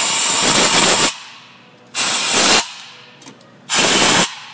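Compressed-air blow gun blasting out the spark plug wells in three bursts of hissing air: the first about a second long, the next two shorter. It is clearing debris from the wells before the ignition coils go back in.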